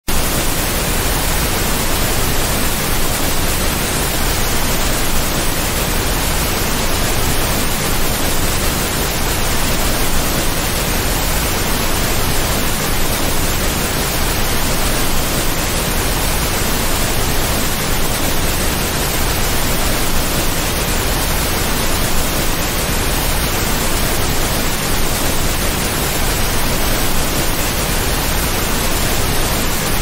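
Waterfall: a steady, loud rush of falling water, an even hiss spread from deep to very high pitches, with no changes or separate events.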